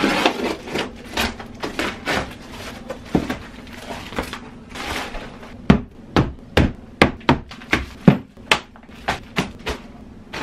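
Packing tape on a cardboard box being slit and torn open with a blade, a rough scratchy noise with a few knocks. Then, about halfway through, plastic supplement tubs are set down one after another on a wooden desk: a quick run of about a dozen sharp knocks over four seconds.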